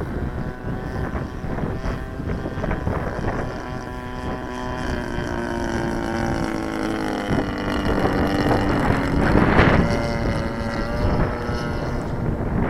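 Aircraft engine droning in flight, its pitch sliding slowly down as it passes, with wind buffeting the microphone and a strong gust about ten seconds in.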